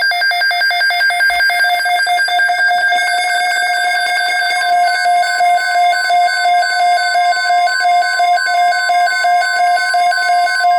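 Emergency Alert System alert tones for a severe thunderstorm watch, coming over two radio stations at once. A loud pulsing electronic alert tone is joined about four seconds in by a second, steady single-pitch alarm tone.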